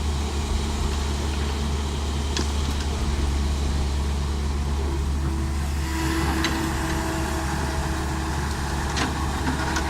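Diesel engine of a CAT E120 excavator running steadily under load. From about six seconds in, a steady whine and harsher higher noise join as the machine works, with a few short knocks.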